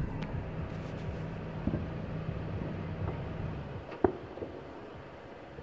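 Distant fireworks: a single sharp bang about four seconds in, with a few fainter pops around it, over a steady low rumble that fades after the bang.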